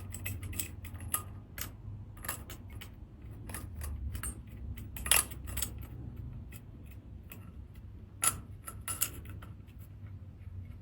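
Seashells clicking and clinking against each other and hard surfaces as they are handled during cleaning, in irregular taps, with two louder clacks about five and eight seconds in, over a low steady hum.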